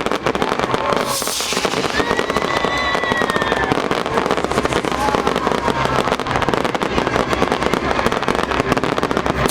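Fireworks display going off without a break, a dense rapid crackle of bangs and pops.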